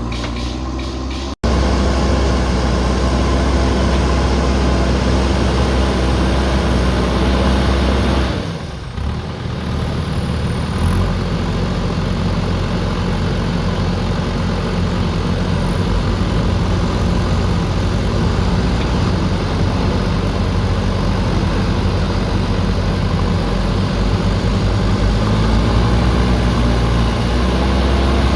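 Diesel engine of a JCB backhoe loader running steadily. The sound cuts off abruptly for an instant about a second in, dips briefly about a third of the way through, and rises in pitch near the end as the engine revs up.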